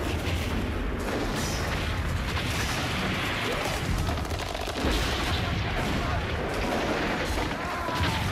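Battle din of cannon and musket fire with explosions over a continuous low rumble, a few sharper blasts standing out.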